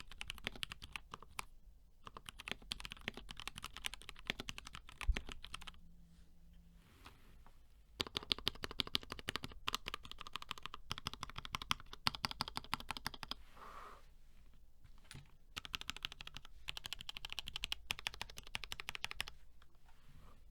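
Mechanical keyboard with lubed and filmed KS3 black switches on an aluminium plate being typed on fast. The keystrokes come in quick runs broken by short pauses, with one heavier, deeper keystroke about five seconds in.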